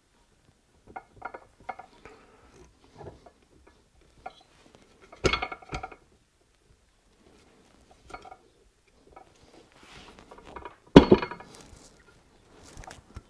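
Metal clinks and knocks from an aluminium engine crankcase cover being handled and pressed into place, with light clicks early on and two louder knocks, about five seconds in and about eleven seconds in, the second the loudest. This is the cover being worked down over the crankshaft and its bearing.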